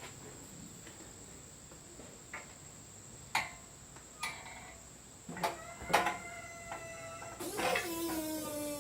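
Hoist lowering a heavy electric motor: a few sharp clicks, then creaking squeals and one long squeal that slowly falls in pitch as the load comes down.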